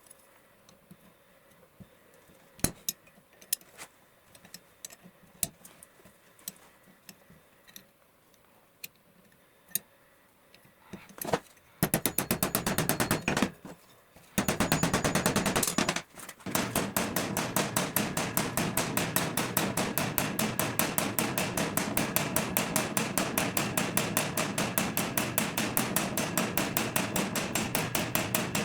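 A few scattered light metal clinks, then rapid, even hammer taps on metal, about six blows a second, running through the second half with one short pause.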